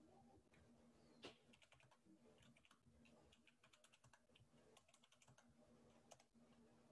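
Faint typing on a computer keyboard: a quick, uneven run of keystrokes, with a sharper key strike about a second in and another near the end.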